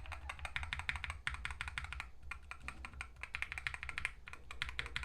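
Fast typing on a mechanical keyboard fitted with Akko CS Ocean Blue tactile switches: a rapid stream of key clicks with a couple of short pauses.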